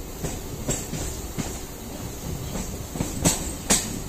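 Mumbai suburban local train running, heard from its open doorway: a steady rumble with irregular sharp clacks of the wheels on the track, the two loudest near the end.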